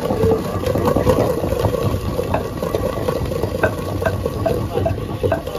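Wooden pestle pounding and grinding almonds with spices in a heavy stone mortar: irregular dull knocks about twice a second over a continuous gritty crunching and scraping.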